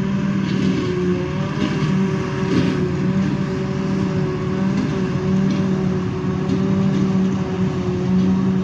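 Claas Jaguar 880 self-propelled forage harvester chopping grass silage and blowing it into a trailer, with the Fendt tractor pulling alongside. Their engines and machinery make a loud, steady drone with a held low tone that wavers slightly.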